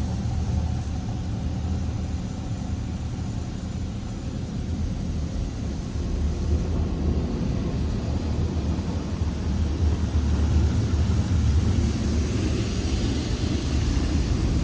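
Belanger Kondor touchless in-bay car wash heard from inside the car: a steady low rumble, with a hiss of water spray on the car growing louder in the last few seconds.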